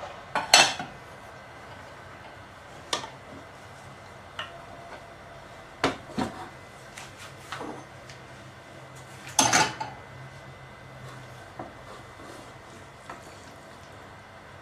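Kitchenware clattering: an aluminium cooking pot and metal utensils knocking and clinking in a series of separate sharp knocks, the loudest about half a second in and about nine and a half seconds in.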